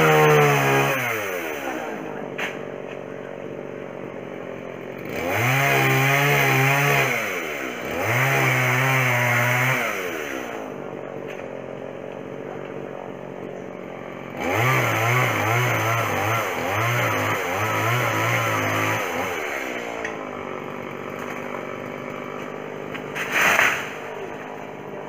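Chainsaw engine revved up in several bursts of one to two seconds, falling back to a low idle between them; the longest, a little past the middle, stutters on and off. One short sharp sound near the end.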